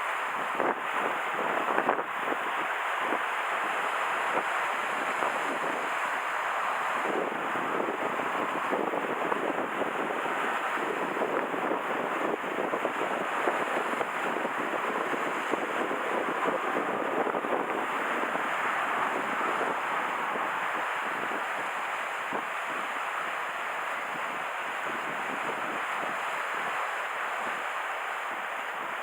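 Strong wind and waves washing along the bay shore: a steady rushing noise, a little louder and gustier in the first two-thirds, then easing slightly.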